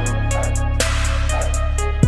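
Background music: a beat with a deep sustained bass and quick high ticks, and a louder hit about a second in. No vocals are heard here.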